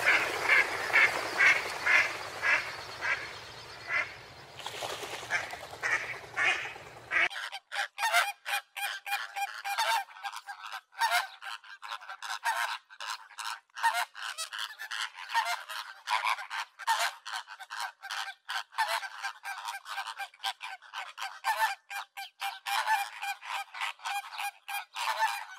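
A flock of flamingos honking, many goose-like calls overlapping in a constant chatter. A low background rumble underneath stops abruptly about seven seconds in, leaving only the calls.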